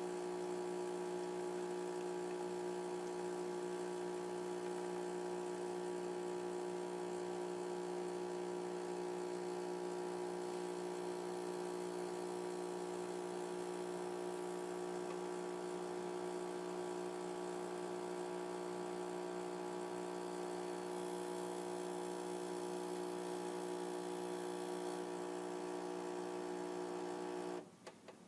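DeLonghi ESAM3300 Magnifica espresso machine's pump humming steadily as it brews coffee, then cutting off suddenly near the end with a couple of small clicks as the brew cycle finishes.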